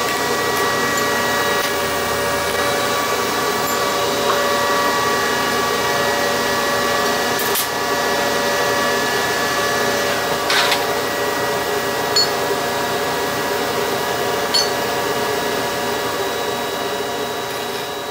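Steady whirring drone of a running motor or fan, like shop equipment, with a few light clicks and knocks scattered through it.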